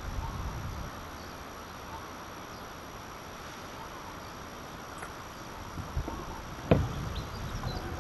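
Quiet outdoor ambience with faint scattered chirping, then a small knock and, just after, a sharp, louder knock about two-thirds of the way through.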